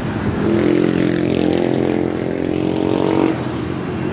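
Motor vehicle engine running with a steady hum that swells about half a second in and fades away near the end, over steady street noise.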